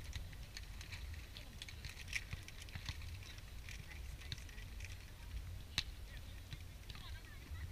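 Wind rumbling on the microphone, with scattered faint taps and one sharp smack about six seconds in: hands striking the volleyball during a beach volleyball rally.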